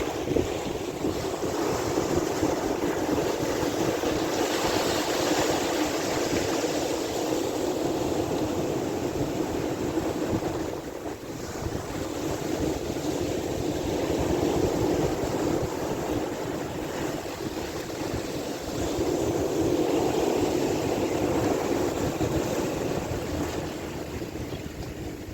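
Sea waves washing, with wind buffeting the microphone; the noise swells and eases every few seconds.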